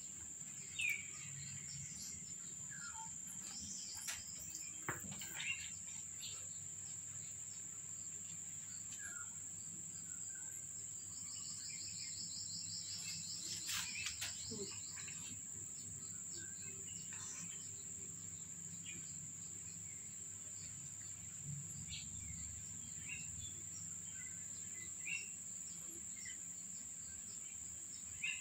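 Outdoor insect drone, a steady high-pitched hum, with a pulsing insect trill for a few seconds about halfway through. Scattered short chirps and a few faint clicks sound over it.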